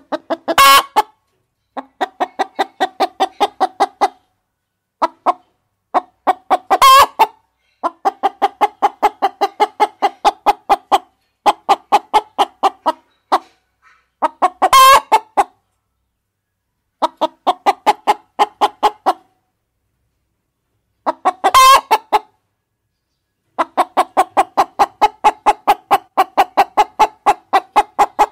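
Chickens clucking in steady runs of about five clucks a second, with gaps between runs. Four times a short, louder call cuts in.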